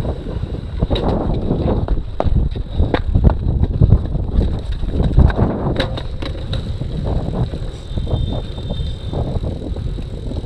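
Cyclocross bike rolling over brick cobbles, with a low rumble and frequent sharp rattling clicks from the bike, and wind noise on the camera microphone.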